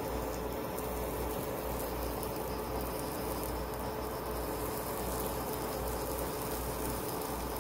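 Steady hum of a running kitchen appliance fan, with a faint steady tone over a low hiss.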